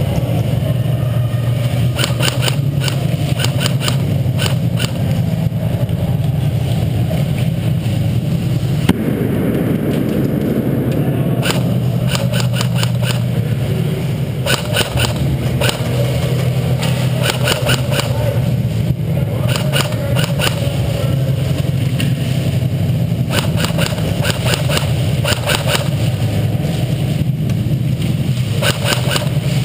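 Several bursts of airsoft gunfire, rapid strings of sharp cracks that come every few seconds, over a steady loud low hum.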